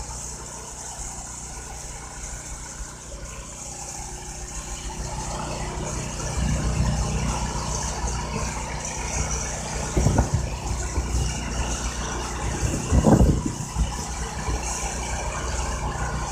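Diesel engine of a truck-mounted boom crane running steadily, getting louder about six seconds in, with two brief louder bursts about ten and thirteen seconds in.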